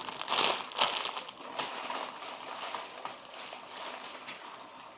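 Plastic packaging crinkling and rustling as a squishy toy is handled, busiest in the first second or so, then dying down to faint rustling.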